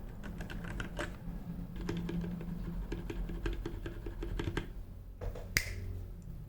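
Royal Kludge RK68 mechanical keyboard with linear red switches being typed on: short key clacks, scattered at first, then a quick even run of about five a second through the middle, with one louder knock near the end.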